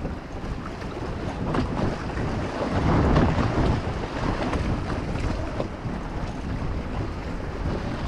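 Wind buffeting the microphone over choppy water splashing around a small boat, a steady rushing noise that swells about three seconds in.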